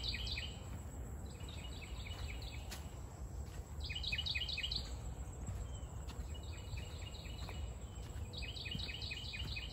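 A songbird singing a short phrase of quickly repeated notes, five times at intervals of a second or two, over a steady low rumble.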